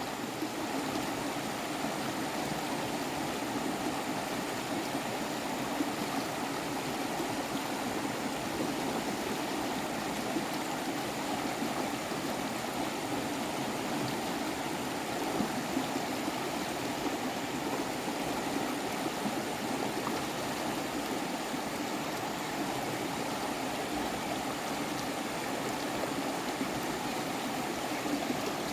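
Running water, such as a stream flowing, a steady unbroken rush.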